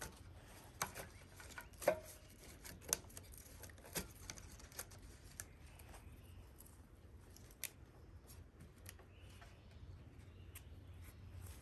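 Faint, scattered short clicks and light taps from handling things, irregularly spaced, with the sharpest ones in the first few seconds, over a faint low rumble.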